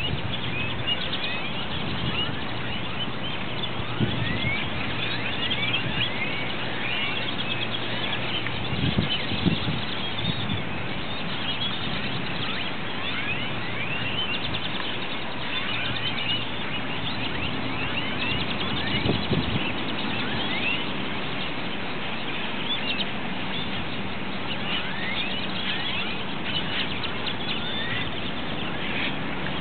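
A large flock of purple martins gathering to roost, calling continuously overhead: a dense chorus of many short, downward-sliding chirps over a steady low hum.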